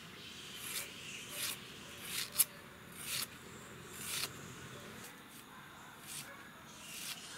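Red onion being sliced by pushing it against a fixed upright blade set in a wooden block: a crisp slicing stroke about every second, with one sharp click a little over two seconds in, the loudest sound.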